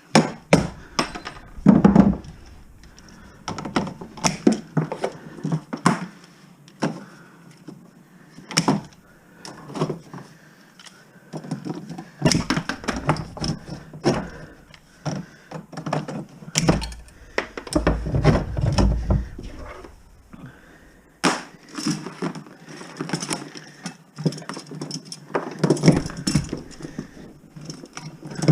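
Copper electrical wire being ripped out of bare wall framing: a string of irregular cracks, snaps and knocks, with a heavier cluster of low thumps about two-thirds of the way through.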